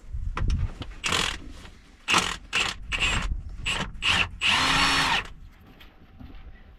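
Cordless power tool spinning a socket in a string of short trigger bursts, then one longer run about four and a half seconds in, working loose the flange bolts of a blown hydraulic hose on an excavator.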